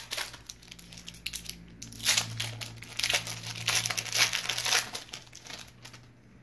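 Foil Pokémon booster-pack wrapper crinkling and tearing as it is worked open by hand, in dense bursts that die away near the end. A faint steady low hum runs underneath.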